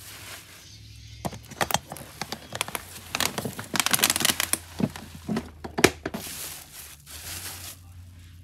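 Plastic bubble-wrap packaging crinkling and crackling as the tool case is handled out of it. The crackles come as a dense, irregular run starting about a second in, thicken in the middle and die down near the end.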